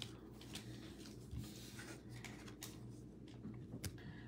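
Faint clicks and rustles of trading cards in rigid plastic holders being handled and set upright on a tabletop, over a steady low hum.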